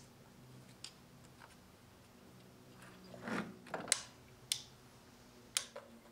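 Sharp clicks and a short metallic rasp from a click-type torque wrench on an extension and spark plug socket, tightening a new spark plug into the cylinder head. The clicks are scattered, with the loudest about four seconds in.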